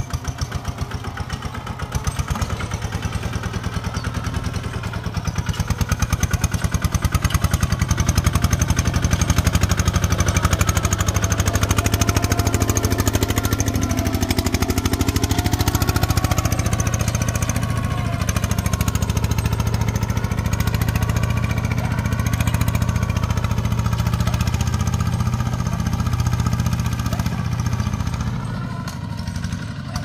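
Single-cylinder diesel engine of a Kubota two-wheel walking tractor running under load, pulling a disc plough through dry soil, with a fast, even chug. It gets a little louder several seconds in and eases slightly near the end.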